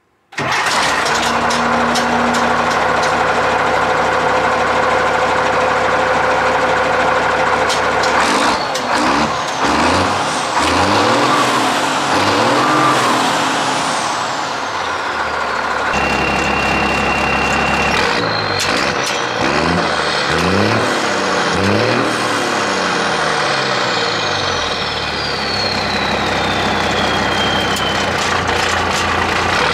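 Straight-piped Cummins 6CTA 8.3 turbo-diesel inline-six with an HX40 turbo idling steadily, then revved up and down again and again from about eight seconds in. A high whine falls slowly away over the last few seconds as the turbo spools down.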